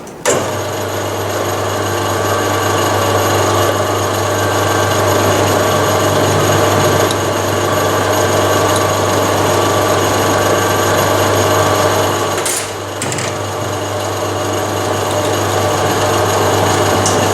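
Metal lathe starting up and running steadily while drilling a 5 mm hole in a block held in the four-jaw chuck. The running sound dips briefly about twelve seconds in, then carries on.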